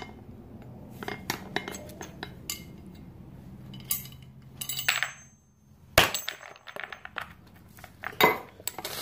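Metal bicycle parts being handled and fitted by hand: scattered clinks and knocks, the loudest a sharp knock about six seconds in and another about eight seconds in.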